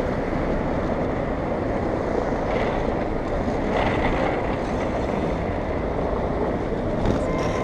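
Inline skate wheels rolling on asphalt, heard with a steady rush of wind on the camera microphone and city traffic around.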